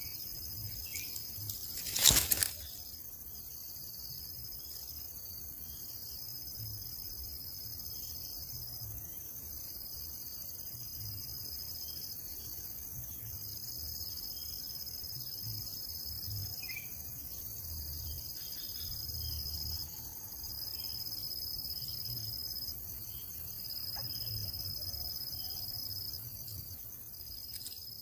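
Insects trilling in a steady high-pitched chorus that breaks off briefly every second or two, with one sharp knock about two seconds in.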